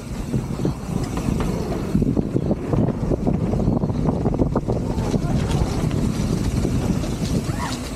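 Canyon Torque enduro mountain bike ridden fast along a dirt trail: tyres rumbling over the ground while the bike rattles and clatters over bumps, with wind buffeting the microphone. A short high squeal near the end.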